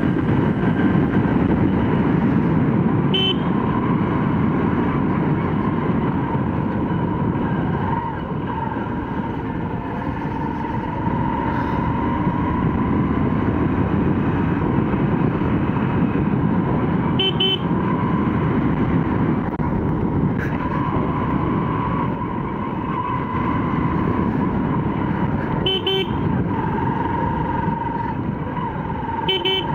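Motorcycle running at road speed, the engine and rush of air steady underneath, with a few short horn toots, the last ones near the end.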